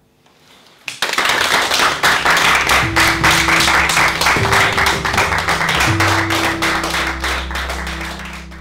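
Applause, dense clapping, breaking in suddenly about a second in over music with sustained notes and a bass line, then fading out near the end.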